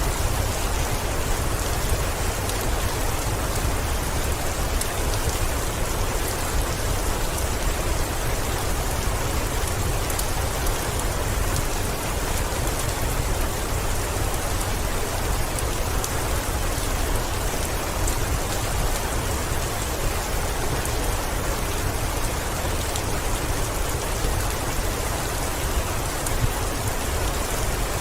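Heavy rain falling steadily on a window, an even hiss of drops over a deep low rumble, with faint scattered ticks of individual drops.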